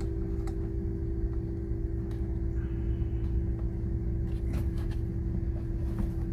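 A steady low hum with a constant pitched drone, under a few light plastic clicks and taps from a DJI Mini 2 SE remote controller being handled and set into its carry case. There is a click about half a second in, a pair of clicks near the middle and one more near the end.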